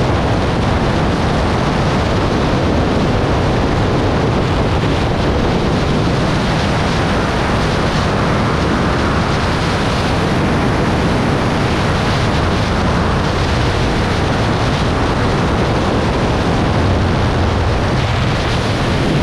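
Steady rush of freefall wind blasting over a microphone on a camera falling with skydivers. It is loud and even throughout.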